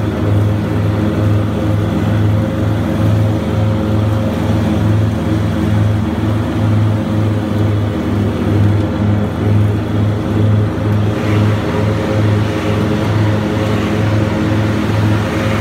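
Grasshopper 325D mower's diesel engine running steadily at working speed, with the mower deck and Power Vac blower turning, a steady drone that pulses evenly in loudness.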